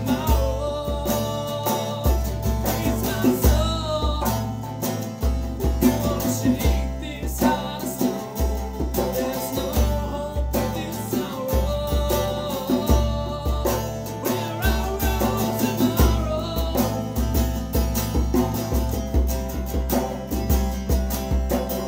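Acoustic trio playing a song: strummed acoustic guitar, acoustic bass guitar and a djembe hand drum keeping a steady beat, with a male voice singing the lead.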